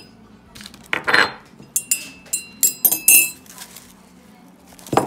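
A ceramic mug being handled, with the spoon inside it clinking against the sides: a short scrape about a second in, then about half a dozen quick ringing clinks, and a single knock near the end.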